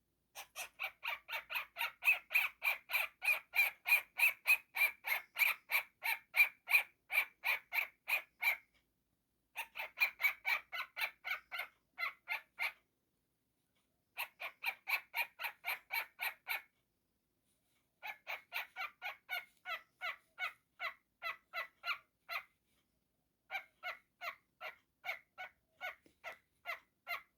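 A cockatiel giving long runs of short repeated calls, about three a second, in bouts of a few seconds broken by brief pauses.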